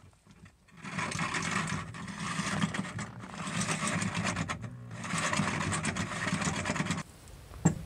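Power drill with a hole saw cutting through a bus's sheet-metal floor from below, running in three stretches with short pauses. A single sharp knock comes near the end.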